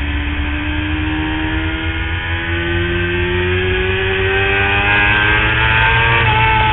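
Superbike engine heard from an onboard camera, its revs climbing slowly and steadily as the bike holds the throttle through a long corner. Wind rumbles low on the microphone.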